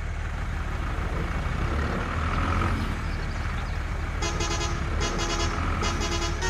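A horn tooting in about four short repeated blasts, starting about two thirds of the way in, over a steady low engine rumble.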